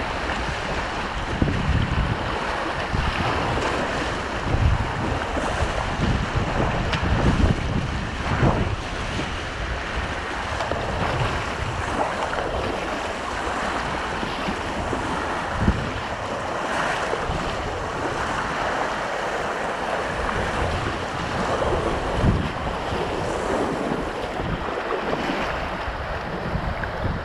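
River rapids rushing and splashing around a whitewater kayak and its paddle, with wind buffeting the microphone in irregular low thumps. One sharp knock stands out a little past halfway.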